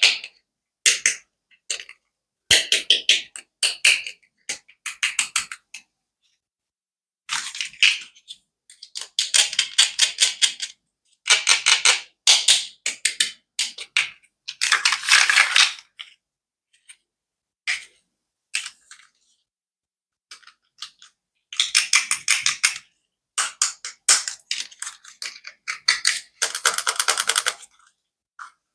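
Toy clicking: rapid trains of sharp clicks lasting a second or two, with scattered single clicks and short silent gaps between them.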